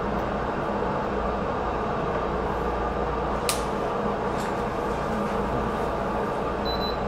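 Steady whir of bench test-instrument cooling fans, with a single sharp click about three and a half seconds in and short high beeps near the end as keys are pressed on a bench power supply's front panel.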